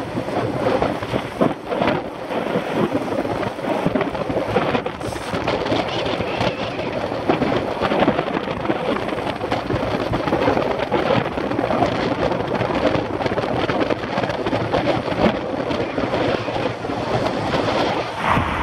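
Wind buffeting the microphone of a bicycle-mounted camera at about 25 mph: a continuous rushing noise full of irregular crackling gusts, with no letup.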